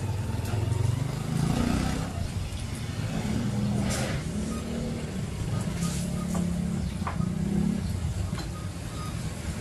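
Low rumbling hum, uneven in strength, with a few short clinks of utensils on plates.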